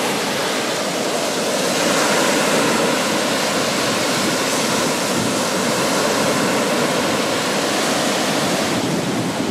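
Sea waves breaking on a sandy shore close by, a steady rushing wash of surf that swells a little about two seconds in.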